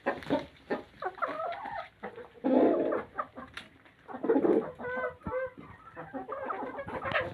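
Domestic chickens clucking in short, overlapping calls, with louder calls about two and a half and four and a half seconds in.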